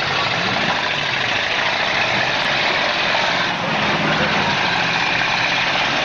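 Several demolition derby cars' engines running together, their pitch rising and falling as they rev.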